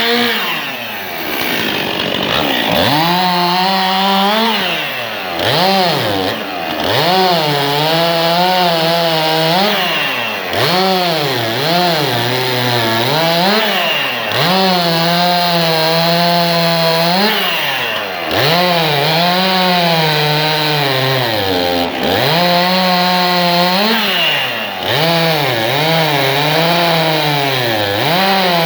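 Stihl MS 261 C two-stroke chainsaw cutting wood, its engine pitch rising and falling over and over as the revs climb and then drop under load in the cut.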